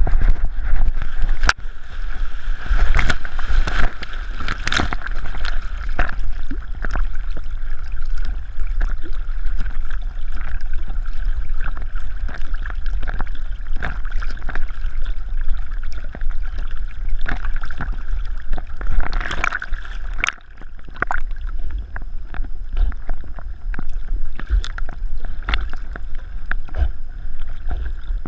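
Water sloshing and splashing around a chest-mounted GoPro as a dog swims, with a steady low rumble and many small knocks and clicks against the camera housing.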